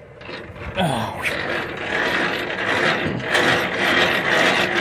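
Semi-trailer landing gear being hand-cranked up, its gearbox running with a steady ratcheting gear noise from about a second in. The legs turn freely because the loaded trailer's weight is on the truck.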